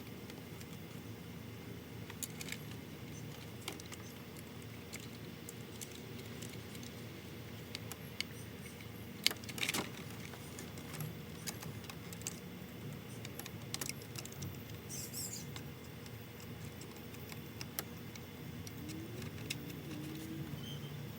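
Scattered light clicks and metallic taps from hand tools, screws and latch parts being worked inside a car door, over a faint low hum. The sharpest clicks come a little past the middle.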